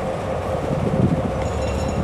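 EMD switcher locomotives, an SW14 and an SW1200, running as they pull a cut of tank cars slowly past: a steady engine drone with a low rumble from the wheels and cars.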